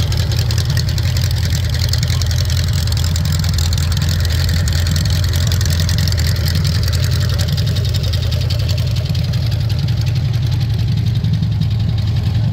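Volkswagen Beetle's air-cooled flat-four engine idling steadily, a loud even low running sound that holds the same throughout.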